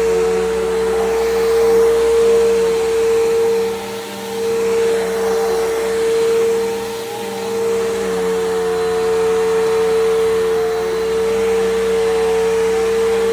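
Bissell PowerGroom bagless upright vacuum running with its brush roll on, a steady loud motor whine over airflow noise. The level dips briefly about 4 and 7 seconds in.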